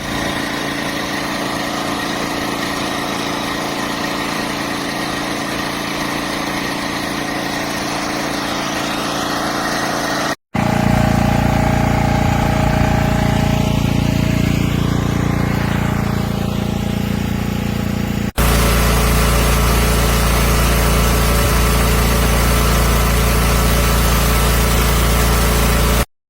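WEN DF5600X dual-fuel portable generator's engine running steadily. The sound breaks off abruptly twice, about ten seconds in and about eight seconds later, and comes back louder and deeper each time.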